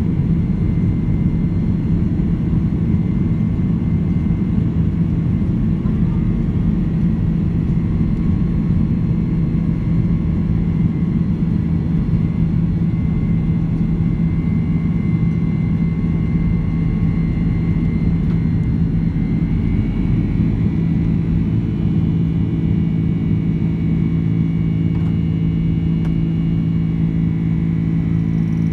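Boeing 767-300ER jet engines running at takeoff power, heard from inside the cabin: a loud steady rumble with a low hum and a faint whine, over wheel rumble from the runway. The deepest rumble thins about two-thirds of the way through as the airliner lifts off.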